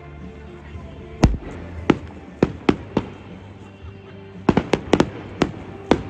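Fireworks shells bursting in a series of sharp bangs: one deep boom about a second in, a few more spaced reports, then a quick run of cracks near the end.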